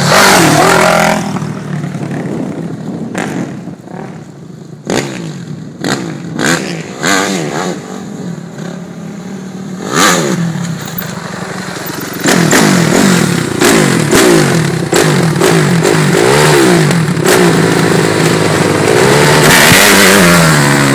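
Four-stroke dirt bike engines revving, the pitch rising and falling with the throttle. The engines drop back for several seconds, with scattered knocks and clatter, then come back loud from a little past halfway, revved hard as a rider spins the rear wheel in the dirt.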